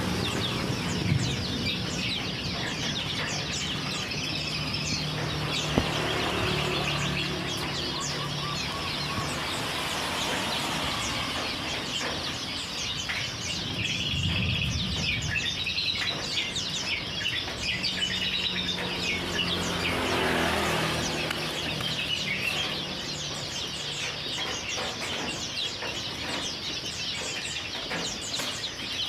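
Many birds chirping and calling continuously in quick, overlapping chirps, with a low steady hum underneath.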